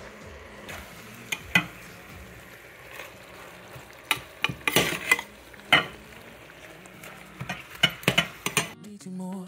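A metal utensil stirring fresh spinach in a stainless steel saucepan, clinking and scraping against the pot a dozen or so times, over a steady low sizzle of food cooking on the stove.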